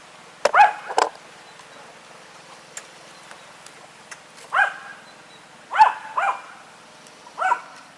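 Dog barking: about six short barks, some single and some in quick pairs, with small faint clicks between.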